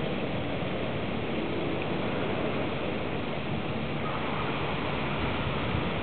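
Steady, even rushing noise with no distinct events over it; the kingfisher does not call.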